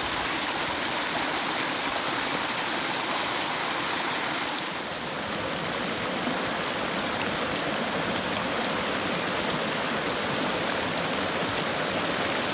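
Small mountain stream rushing and splashing over mossy rocks in little cascades, a steady sound of running water. The stream is running high after a lot of rain.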